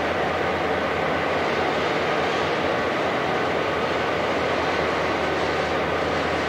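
Diesel locomotive of an Algoma Central EMD F-unit running steadily at low speed, a constant engine drone with a low hum under it.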